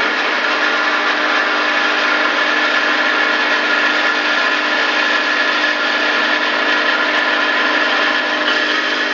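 MEP Shark 652 SXI EVO bandsaw cutting through an H-beam with a Bahco 3853 Fabricator blade. The blade and machine run steadily under load, a continuous grinding noise with a held whine.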